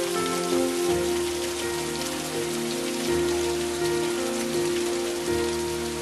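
Water falling and splashing down the partly frozen waterfall, a steady hiss of droplets and spray off the ice. Soft background music with sustained notes and a slow bass line plays underneath.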